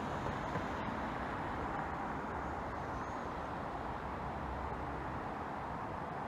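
Steady distant rumble of a passenger train pulling away, over background road traffic.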